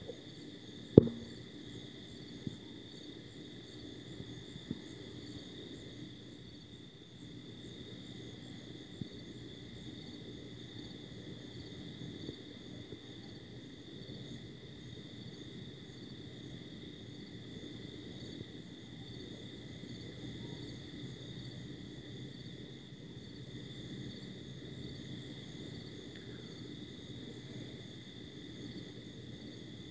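Night insects, crickets, chirping steadily in a continuous high pulsing trill over a low rumble. A single sharp click stands out about a second in.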